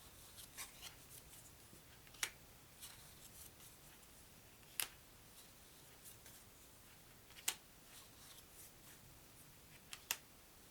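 Playing cards from a Virus card game being handled and laid down one at a time: four sharp snaps about two and a half seconds apart, with soft rustling and sliding between them.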